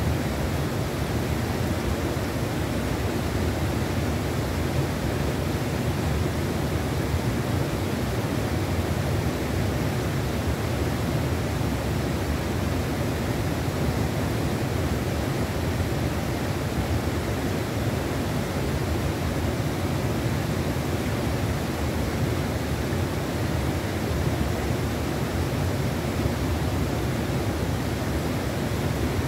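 Steady rush of a fast-flowing trout river, an even wash of water noise that holds unchanged throughout.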